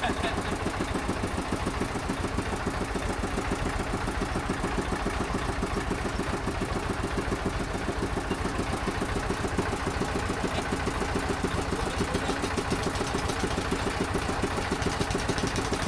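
River motorboat's engine running steadily with a fast, even throb.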